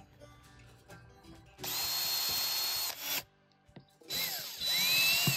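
A 20-volt cordless drill runs in two bursts: a steady run of about a second and a half, then after a short pause a second run whose motor whine rises and falls in pitch as it drives a screw through a plastic sewer-hose fitting's flange.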